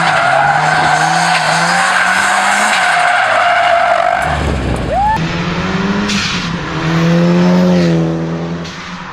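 Mitsubishi Lancer Evolution IX turbocharged four-cylinder engine held at high, steady revs in a drift, with the tyres squealing continuously. About five seconds in, another Evo IX accelerates past, its engine swelling to a peak a bit after seven seconds and then fading as it moves away.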